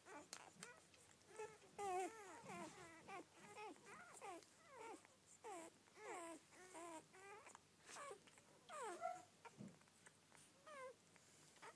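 Newborn Rhodesian ridgeback puppies squeaking and whimpering faintly while they nurse: many short calls, each falling in pitch, several a second and sometimes overlapping.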